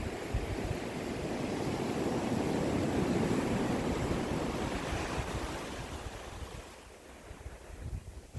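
Ocean waves washing on the shore: one wave surges in, loudest about three seconds in, then draws back and fades. Low wind rumble on the microphone comes near the start and again at the very end.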